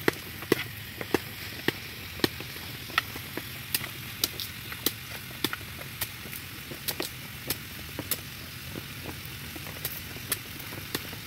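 A kitchen knife chopping meat against a banana leaf, with sharp cuts coming about twice a second at an uneven pace, over a steady background hiss.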